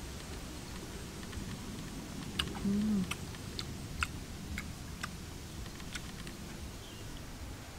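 Close mouth sounds of a person eating tangerine segments: a string of sharp clicks, about one every half second, with a brief low hum about three seconds in.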